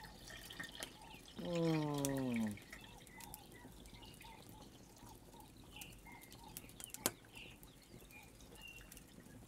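A man's falling 'mmm' of approval, about a second long, as he tastes a bite of fried empanada. It is followed by faint scattered crackling from the wood fire, with one sharp crack about seven seconds in.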